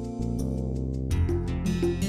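Instrumental background music over the closing credits, sustained notes with a new chord coming in about a second in.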